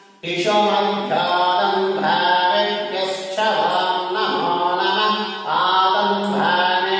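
Hindu mantra chanting: a voice chanting in short repeated phrases over a steady low drone, starting abruptly a moment in.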